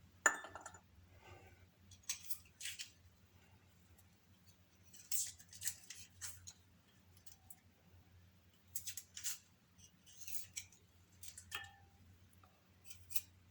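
Small kitchen knife trimming the tops off soaked garlic cloves and peeling away the skins: faint, irregular crisp snips and scrapes, a dozen or so spaced a second or two apart.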